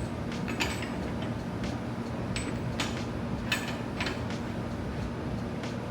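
Electric pasta extruder running with a steady low hum, with light clicks and knocks now and then.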